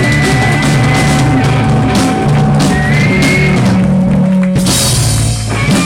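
Live rock band playing loud, with a drum kit beating under held guitar and voice notes, and a hard final hit shortly before the end.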